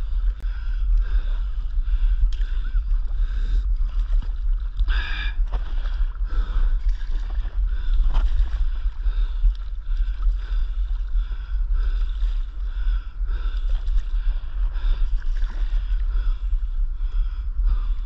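Water sloshing and lapping against a stand-up paddleboard, mixed with wind buffeting the board-mounted action camera's microphone as a heavy low rumble. There is a brief louder splash about five seconds in.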